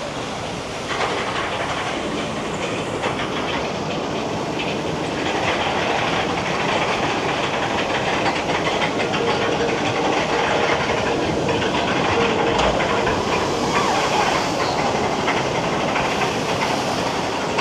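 Rushing, splashing water around a moving water-ride boat, with rapid rattling clicks, growing louder about five seconds in.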